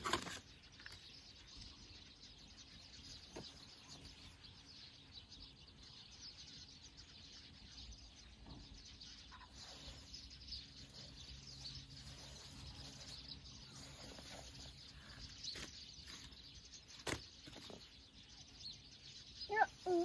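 Faint outdoor ambience with small birds chirping now and then, and a couple of sharp clicks, one at the start and one near the end.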